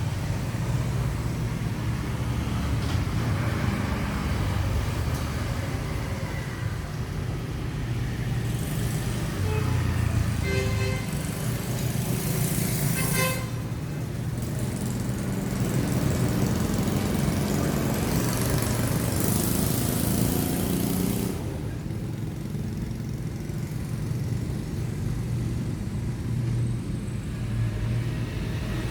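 Bulldozer's diesel engine running steadily under work, a continuous low rumble. About a third of the way in there is a brief higher-pitched tone.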